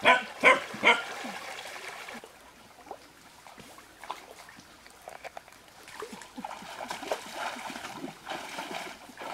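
Three short, loud animal calls in the first second, then water trickling and splashing, growing louder and busier from about six seconds in as feet wade through a shallow stream.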